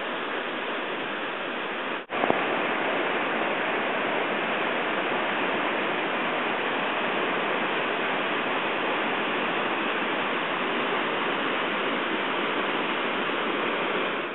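River water rushing steadily over rapids, an even hiss with no pauses. About two seconds in it cuts out for a moment and comes back slightly louder.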